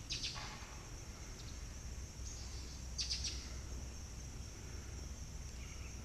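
Steady, high-pitched drone of insects, faint, with two short sharp sounds near the start and about three seconds in.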